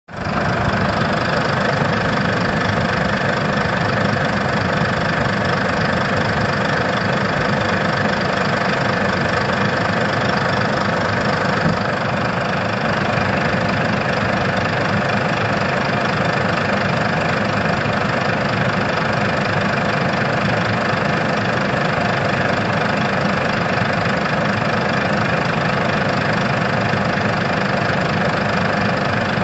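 JCB backhoe loader's diesel engine running at a steady pace.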